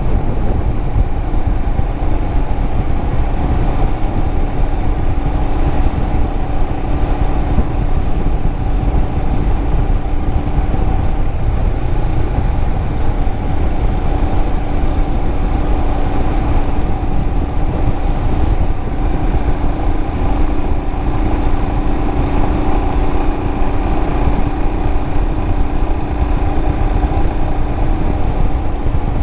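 Royal Enfield Himalayan motorcycle's single-cylinder engine running steadily under way, with a constant low rumble and a steady engine note that changes little.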